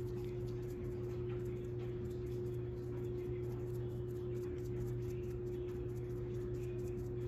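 Steady low hum with one held tone and no change: room tone with no distinct events.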